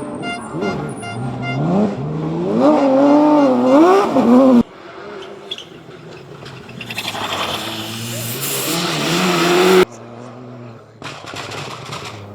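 Rally car engines revving hard, rising and falling in pitch through gear changes, with a car growing louder as it approaches, in short clips that cut off suddenly twice.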